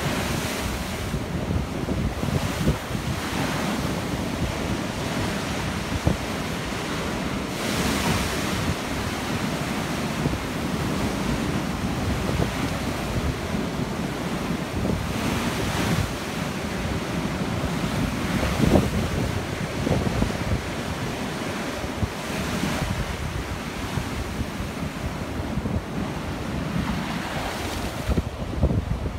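Sea waves breaking against a seawall and washing over a flooded walkway, the surf surging every few seconds over a constant rush of water. Wind buffets the microphone throughout.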